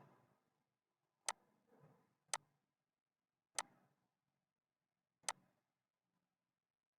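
Computer mouse clicking, four single clicks at irregular intervals about a second or more apart, as segments are picked in AutoCAD for trimming.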